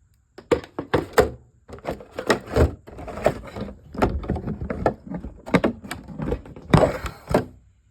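Irregular knocking and clattering of hard objects being handled, many short knocks close together with a dense clatter near the end, as the RC drift car is moved and set in place.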